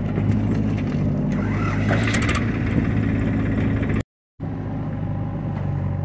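Diesel engines of a JCB 3DX backhoe loader and a tractor running steadily. From about one to two and a half seconds in, soil and broken brick rattle as they tip from the backhoe bucket into a steel trolley. The sound drops out for a moment about four seconds in.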